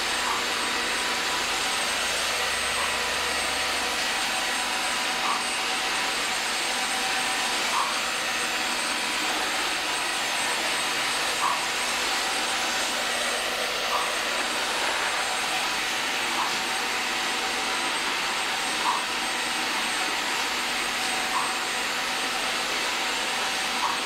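Cordless wet-dry vacuum mop (hard-floor washer) running steadily as it is pushed over the floor, with a faint short chirp about every two and a half seconds.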